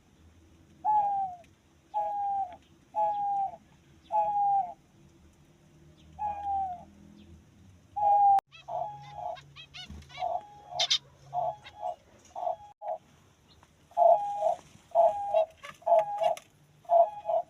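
Diamond dove cooing. It starts as a string of short, falling coos about once a second, then from about halfway turns to a quicker run of two-part coos, with a brief high chirp in the middle.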